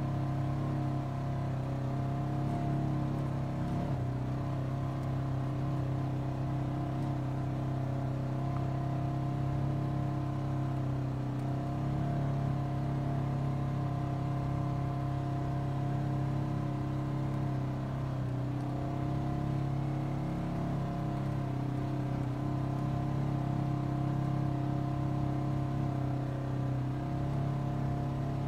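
Engine of a side-by-side off-road vehicle running at a steady speed, heard from the seat, with a constant drone that shifts slightly in pitch a few times as the throttle changes.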